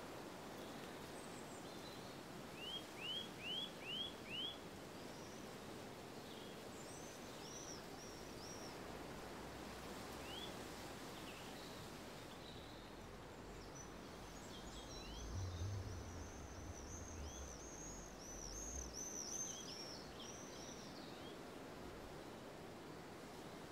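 Faint outdoor ambience with birds singing over a steady background hiss: a run of five quick rising chirps a few seconds in, then a fast series of high arching notes through the second half. A low rumble swells briefly in the middle.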